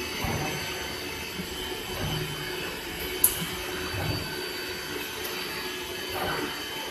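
ATC CNC wood router working a sheet of board: a steady whine of several held tones over machine noise, with a brief sharp high click about three seconds in.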